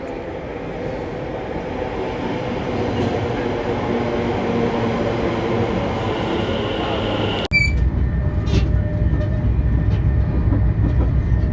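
A train running, plausibly a London Underground train: a steady hum of motors that grows louder, then about seven and a half seconds in an abrupt cut to a deep rumble with a few clicks.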